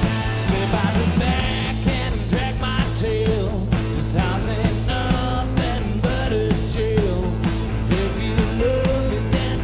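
Rock band playing stoner blues-rock: an amplified blues harmonica, played into a cupped microphone, carries bending, wavering lines over electric guitar, bass guitar and a steady drum beat.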